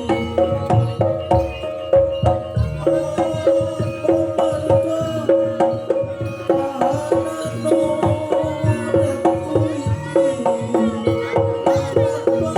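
Live Javanese jaranan gamelan music: kendang hand drums drive a fast beat under a rapid, evenly repeating pattern of struck tuned metal gongs and keys.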